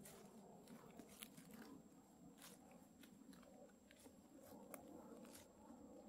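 Faint, irregular crackles and ticks in wet woodland, a few a second at uneven intervals, over a faint low rustle.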